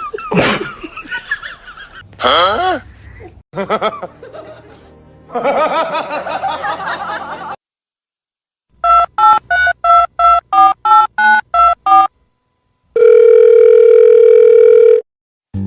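About a dozen quick electronic beeps, each two tones at once like telephone keypad dialling tones, about four a second, followed by one loud steady tone lasting about two seconds. Earlier, before a short silence, come mixed voice-like or animal-like sounds with a rising and falling glide.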